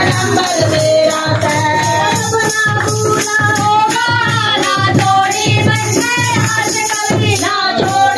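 Live Hindu devotional bhajan: singing over a steady drum beat, with jingling tambourine-like percussion and the gathering clapping along.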